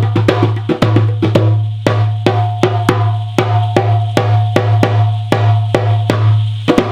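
Drum music: an even run of sharp drum strikes, about three a second, over a steady low drone.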